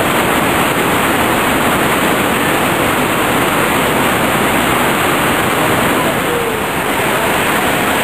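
Whitewater rapids rushing over rocks: a steady, dense roar of churning river water.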